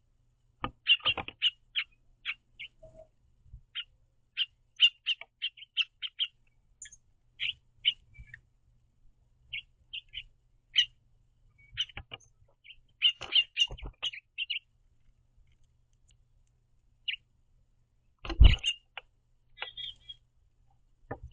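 House finches chirping at a bird feeder: short, high chirps in irregular clusters. A few thumps come in between, the loudest near the end.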